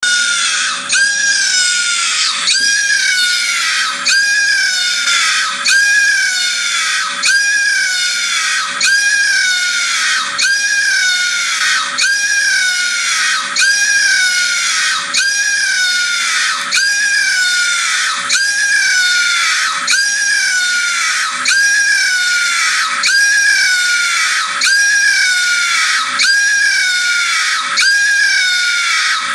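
WaveSecure anti-theft alarm sounding from an HTC Kaiser phone's speaker: a loud siren-like shriek that starts high and slides down in pitch, repeating every second and a half or so.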